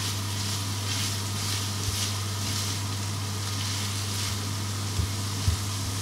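Minced meat frying in a nonstick pan, sizzling steadily as it is stirred with a spatula, over a constant low hum. A few short low knocks come about two seconds in and again near the end.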